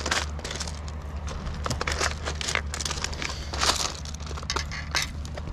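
Rounded beach pebbles crunching and clacking in quick, irregular clicks as they are stepped on and shifted about.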